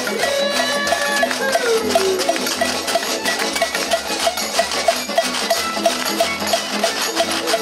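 Old-time string-band music: fiddle, banjo and guitar playing along with washboards scraped with spoons, over a steady clicking beat, with one note sliding down about two seconds in.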